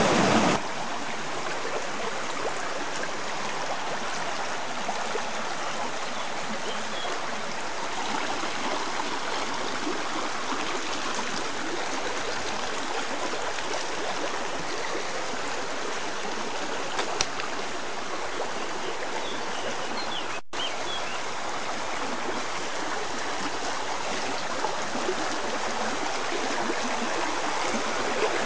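Shallow stream running over rocks: a steady rush of flowing water. It is louder for the first half second, then settles lower and stays even.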